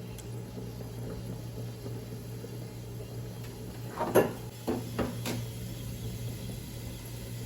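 Utensil knocking against a clay cooking pot: a quick cluster of sharp knocks about four seconds in, then two or three single knocks, over a low steady hum.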